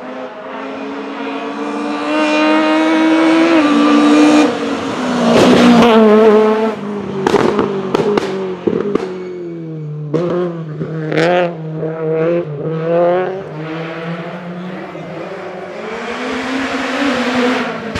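The VW Golf Mk1's Spiess 16-valve four-cylinder racing engine at high revs, climbing in pitch through the gears with quick drops at the upshifts. Several sharp cracks come about seven to nine seconds in. The note then falls lower and wavers before another rising run near the end.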